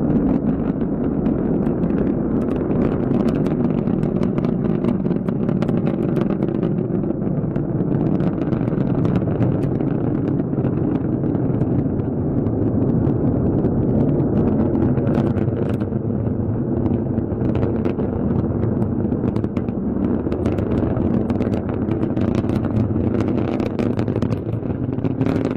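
Steady, loud rumble of a SpaceX Falcon 9 rocket's engines in flight, with sharp crackle running through it.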